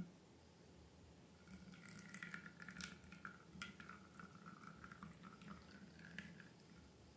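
Faint wet, sticky squishing of slime, with small crackling clicks starting about a second and a half in.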